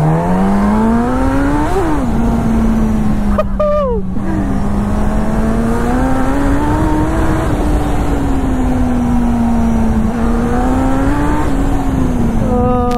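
Suzuki GSX-S1000's 1000 cc inline-four on its stock exhaust, accelerating hard. The revs climb steeply through the first two seconds, drop at an upshift, then rise and fall as it pulls on. A brief falling tone cuts in about three and a half seconds in.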